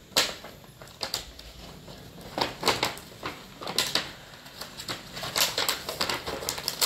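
Clear plastic wrapping crinkling and a pink plastic toy case clicking as a child tears and pries at it, in irregular crackles and taps. The case is proving hard to get open.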